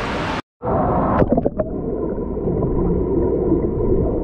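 Muffled, steady rushing of water with a few sharp knocks a little over a second in, after a brief dropout near the start.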